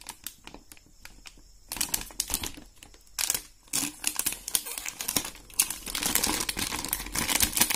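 Thin plastic wrapping being cut open and pulled apart by hand, crinkling and rustling with small clicks. It starts quiet and comes in irregular bursts from about a second and a half in, growing nearly continuous near the end.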